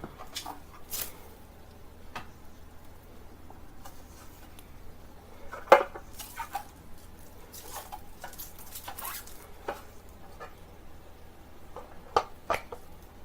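Hands handling packaging and parts of a home theatre system: scattered rustles and clicks, with a sharp knock about six seconds in and two more near the end.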